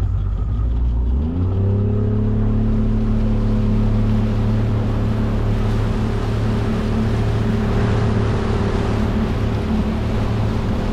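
A boat's outboard motor throttling up about a second and a half in, then running at a steady cruising speed, with water and wind hiss around it.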